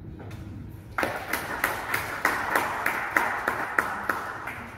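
Small audience applauding, starting about a second in with sharp individual claps over the general clapping, and dying away near the end.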